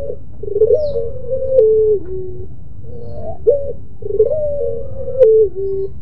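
Barbary (ringneck) dove of the long-cooing 'puter pelung' type giving its drawn-out, moaning coo. Two long coos that step up and down in pitch, with a short coo between them, and a few sharp clicks among the notes.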